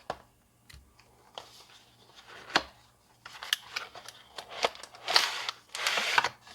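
Cardboard box and packaging being handled during a tablet unboxing: scattered clicks and taps, then a longer rustling scrape about five seconds in.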